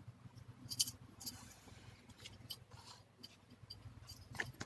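Light clicks, taps and brief rustles of cardboard game pieces being handled, the clearest pair about a second in.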